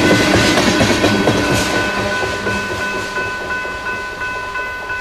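Freight train tank cars rolling past, their wheels clattering over the rails, fading away as the end of the train goes by about two seconds in. A grade crossing bell rings steadily throughout, its rapid dings standing out once the train has passed.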